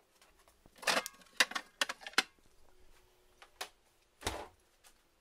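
Items being handled at an open refrigerator: a quick run of light clicks and knocks of containers and shelves, scattered ticks, and a duller thump about four seconds in.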